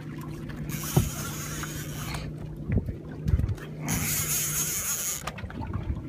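A boat's motor runs with a steady low hum while a sturgeon is being fought from the deck. A high hiss comes and goes, and there are a few dull knocks, about a second in and again near the middle.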